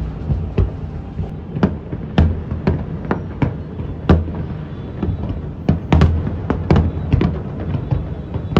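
Fireworks going off in quick, irregular succession: sharp bangs about every half second over a continuous low rumble.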